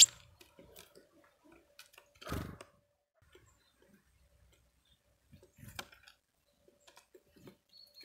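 Great tit at a wooden bird table: a sharp tap at the start, then short wing flutters about two and a half and six seconds in, with faint scattered ticks between.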